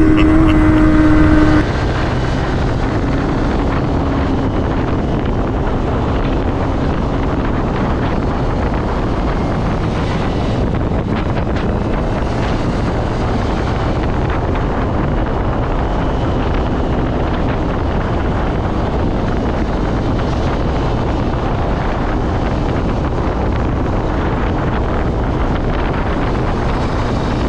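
A motorcycle engine with its note falling for about the first second and a half, then a sudden change to steady wind rushing over an action camera's microphone on a moving motorcycle, with the engine low underneath.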